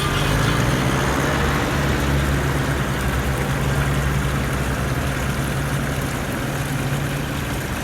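Radio-controlled toy truck and excavator running, with a steady low engine-like hum.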